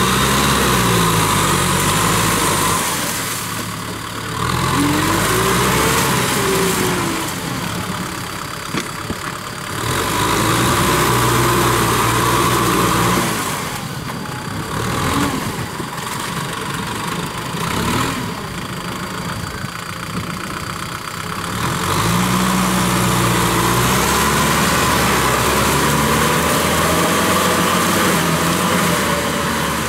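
Kubota M6040SU tractor's four-cylinder diesel engine running under load as it drives a rotary tiller through wet paddy mud. The engine pitch rises and falls, and the sound drops quieter for several seconds at a time in the middle before coming back up.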